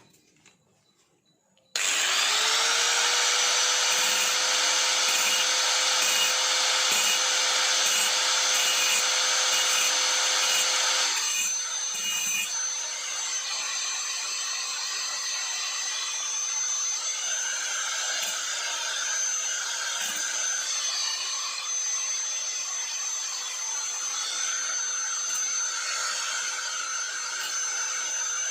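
Small electric power tool switched on about two seconds in, its motor whine rising quickly to a steady pitch, then running with a grinding noise as it cuts a salvaged metal standoff nut. About eleven seconds in the sound drops somewhat in level and changes, but the tool keeps running.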